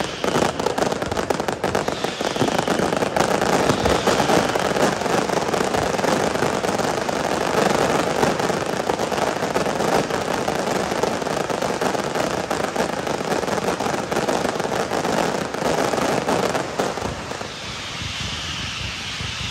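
Aerial fireworks display going off densely: a continuous crackle of rapid pops and bangs. Near the end it thins a little and falling whistles come through.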